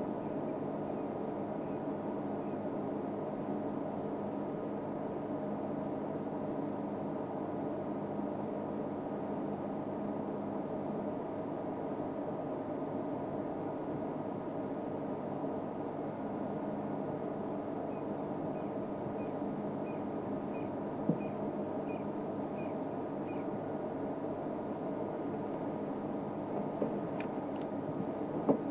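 Safari vehicle engine idling steadily. Partway through there is a short run of faint, evenly spaced high chirps, about two a second, and a couple of sharp clicks.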